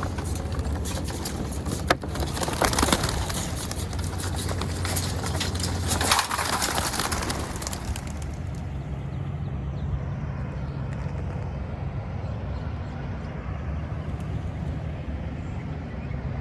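Pigeons cooing over a low steady hum, with two louder rushing noises about two and six seconds in.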